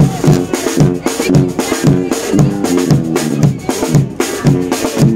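Lively music with a drum kit and bass notes keeping a steady, bouncy beat of about two a second, with chords on top.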